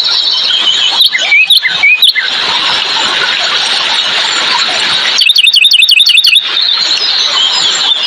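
Dense chorus of songbirds singing, with a few loud sliding whistles about a second in and, past the middle, a rapid series of sharp repeated notes, about ten a second, lasting just over a second.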